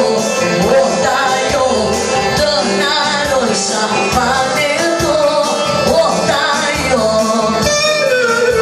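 Albanian wedding dance music for a valle line dance: a singer's winding melody over band accompaniment and a steady beat.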